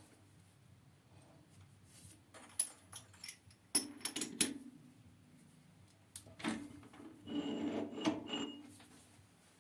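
Metal parts being handled at a stopped lathe: a few clicks and knocks, then a longer scraping rub with faint metallic clinks, as pieces such as the chuck jaws are taken off and put on by hand.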